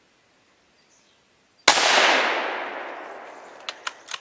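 A single rifle shot, sharp and loud, echoing through the woods and dying away over about two seconds. A few short sharp clicks follow near the end.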